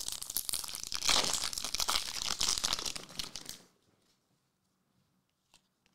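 Foil wrapper of a trading-card pack being torn open and crinkled, a dense crackling that stops about three and a half seconds in, followed by a few faint ticks.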